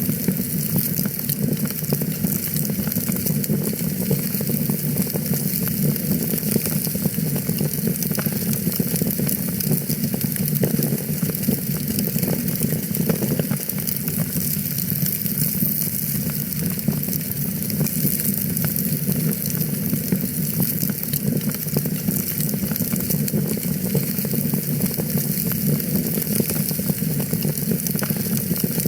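Wood fire crackling steadily in a fireplace: a dense, continuous patter of small pops and snaps over a steady low noise of the burning.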